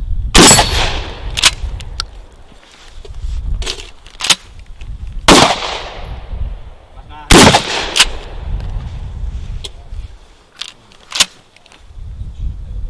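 Gunshots on an outdoor shooting range: three loud shots with long echoing tails, about half a second, five seconds and seven seconds in, with several fainter sharp cracks spaced irregularly between them.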